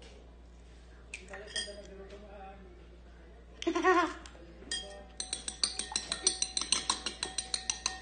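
A metal spoon beating a raw egg in a glass bowl, clinking against the glass in a quick even rhythm of about five strikes a second, starting about five seconds in.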